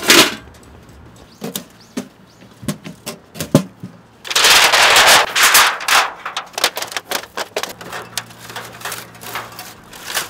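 Light sheet-metal clanks and rattling from a titanium wood stove and its stovepipe being handled. A sharp clank at the start and a few scattered knocks are followed, about four seconds in, by a dense rattle lasting over a second, then by quick light clicks.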